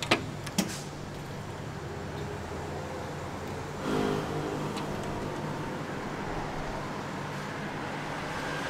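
Cup-noodle vending machine's hot-water dispenser running, a steady mechanical hum as hot water fills the cup. There are two sharp clicks near the start and a short, louder stretch of hum about four seconds in.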